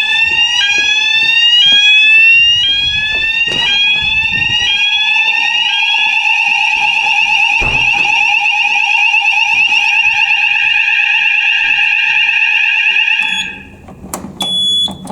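Electronic fire alarm sounders going off in a fire alarm test. There is a rising sweep that repeats about once a second over a steady lower tone, and it changes to a continuous warbling tone. The alarm is silenced abruptly about thirteen seconds in, and a short clatter follows near the end.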